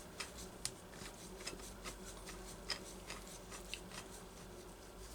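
Faint, irregular light metal clicks and taps of small parts and tools being handled at the chainsaw's flywheel nut, over a faint steady hum.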